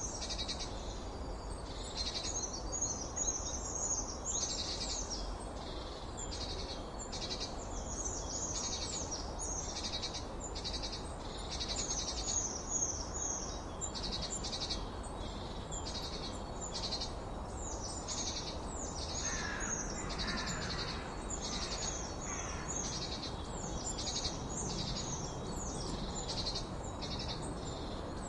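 Several small songbirds singing and calling at once: a dense, unbroken chorus of high chirps, quick falling notes and trills, with a few lower calls about two-thirds of the way in, over a steady hiss.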